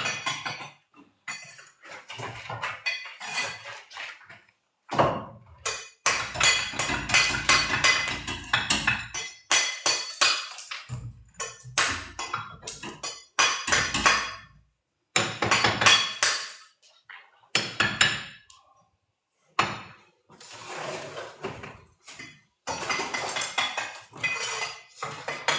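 Repeated clattering, knocking and clinking of hard objects, in clusters broken by several short silent gaps.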